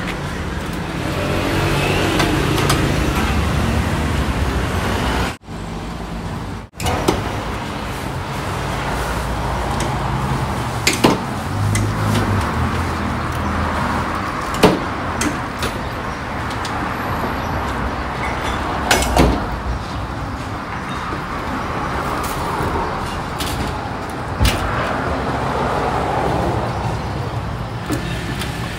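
Steady street traffic noise, with a few sharp clicks and knocks scattered through it. The sound cuts out briefly twice, about five and seven seconds in.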